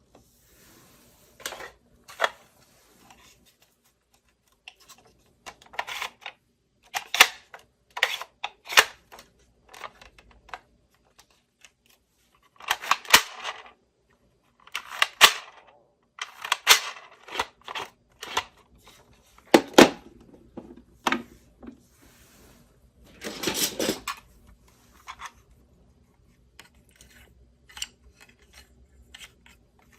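Hands unboxing a miniature steel toy kitchen set: irregular sharp clicks and taps of small pieces being handled, with short rustles and tearing of packaging, the longest rustles about 13 and 23 seconds in.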